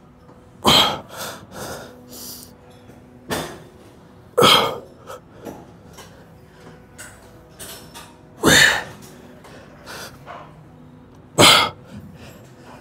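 Sharp, forceful breaths blown out during reps on a pec deck machine, about five strong ones at uneven intervals with softer breaths between, close on a clip-on microphone.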